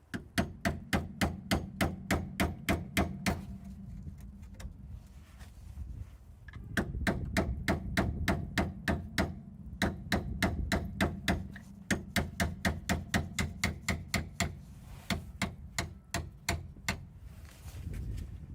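Rapid hammer blows, about three or four a second in several runs with short pauses, driving a puncturing tool into a seized, rusty diesel fuel filter canister so that it can be levered off.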